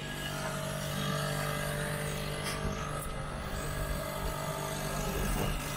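Steady engine hum, with a faint click or two near the middle.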